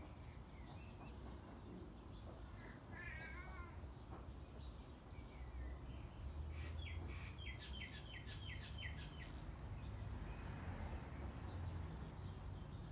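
Birds calling: a short quavering call about three seconds in, then a quick run of about ten short, high repeated notes from about six and a half to nine seconds, over a steady low rumble.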